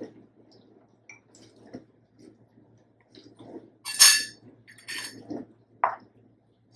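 Metal kitchenware clinking as the oiled sev press is handled: quiet handling noise, then a loud ringing metallic clink about four seconds in, a second clink about a second later, and a short high ping near the end.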